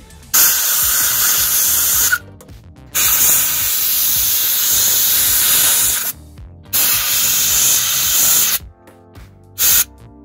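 Compressed-air blow gun blasting air into the spark plug wells of a Ford CVH engine's cylinder head to clear out dirt, as three long hissing blasts of about two to three seconds each and a short one near the end.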